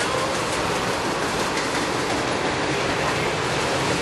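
Freight train of tank cars rolling past, a steady rumble of steel wheels on the rails.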